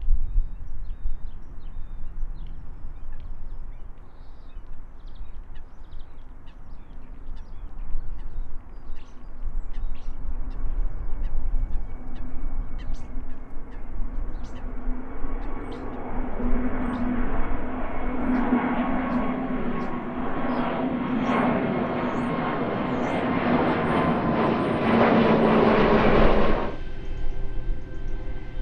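Jet airliner's engines growing steadily louder over about fifteen seconds as it nears, a rushing roar with a steady whine and a low drone, then cutting off suddenly a couple of seconds before the end.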